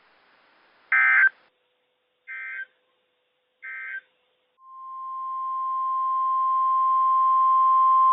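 NOAA Weather Radio SAME data signal: three short, buzzy bursts of data tones about a second and a half apart, the first much louder, matching the end-of-message code that closes the test. About four and a half seconds in, the steady 1050 Hz weather radio warning alarm tone starts and keeps growing louder, the signal that a warning broadcast is about to follow.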